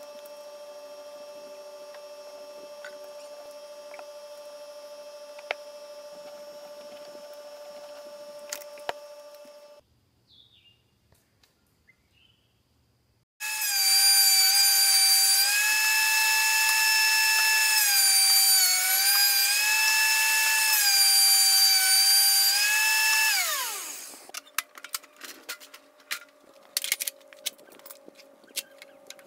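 A steady machine hum for about ten seconds, a pause, then the loud whine of an electric wood planer's motor, its pitch sagging and recovering several times as 2x4 stock is fed through the cutter, before it is switched off and spins down. Scattered knocks and clatter of the boards being handled follow.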